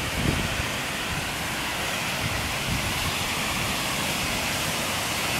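Paulina Falls, a waterfall on Paulina Creek, rushing steadily: an even, unbroken hiss of falling water.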